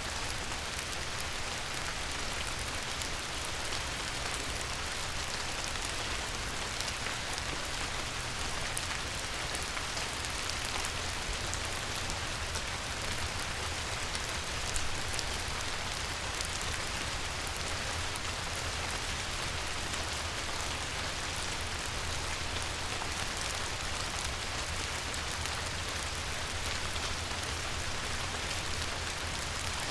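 Light rain falling on a river: a steady hiss of countless small drop patters, over a low steady rumble.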